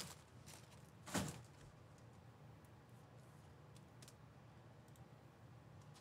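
Near silence: room tone with a low hum, broken by one short soft noise about a second in and a few faint clicks later.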